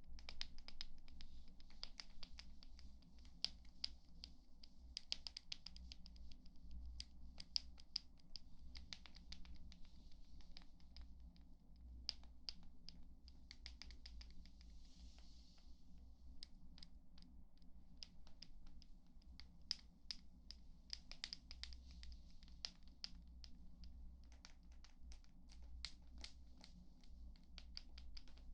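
ASMR trigger sounds close to the microphone: quick, irregular light scratching and tapping, faint, with a brief soft brushing hiss about halfway through.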